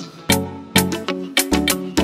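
Upbeat background music with a steady beat, its notes struck about twice a second.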